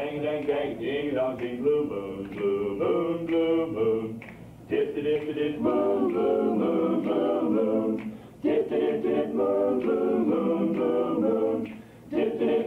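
Male vocal group singing 1950s-style songs a cappella in close harmony, in three phrases of about four seconds each with brief breaks between them.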